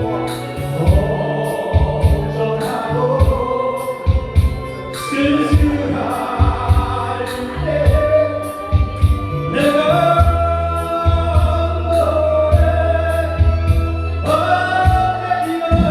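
Music: an upbeat song with singing over a steady, fast drum beat.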